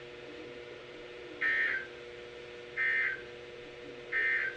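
Emergency Alert System end-of-message code: three short, identical bursts of harsh warbling digital data, each about half a second long and evenly spaced, over a faint steady hum. The three bursts signal that the alert message has ended.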